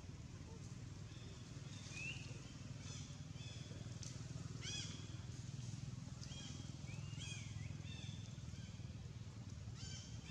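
Monkeys in the trees giving a string of short, high, squeaky calls, each rising and then falling in pitch, the loudest about halfway through, over a steady low hum.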